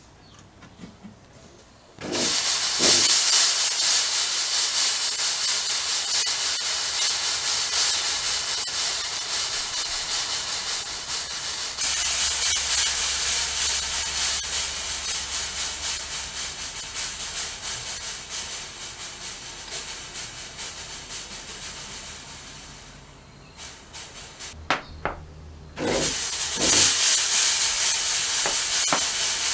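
Chauvet Hurricane 1250 fog machine jetting fog, a loud steady hiss that starts about two seconds in, with a low hum from its solenoid pump joining partway through. The hiss fades, gives a few short puffs, then starts again near the end.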